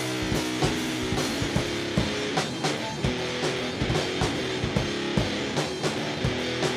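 Rock band playing an instrumental passage with no singing: a drum kit keeps a steady beat under sustained guitar chords.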